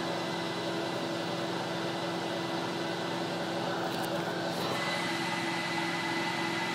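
Savage 1 portable carpet extractor's two Lamb 117500-13 vacuum motors, wired in parallel, running steadily under load: a constant whine over a rush of air being pulled through 215 feet of 2-inch hose.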